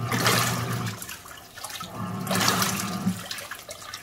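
TAIGA 5 kg mini fully automatic washing machine agitating a wash load: twice, the motor hums for about a second while water and clothes slosh, with short pauses between as the wash action reverses.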